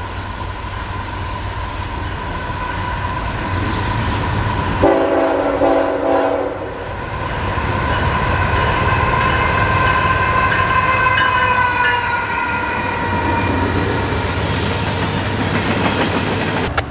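Norfolk Southern diesel freight locomotives sounding their air horns in long held chords as they approach and pass, over the low rumble of the engines and wheels on the rails. About five seconds in, a deeper horn chord sounds for a couple of seconds before the higher chord returns.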